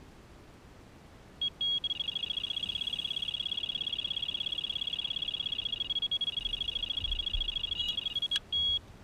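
Delkim TXI Plus electronic bite alarm sounding a carp run: after a single beep, it sounds a fast, unbroken stream of high-pitched beeps as a carp strips line, then stops near the end with one last beep.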